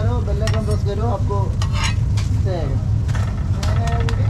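Food sizzling in a hot pan while a cook's spatula clatters and scrapes against it in quick, irregular strokes, over a steady low hum.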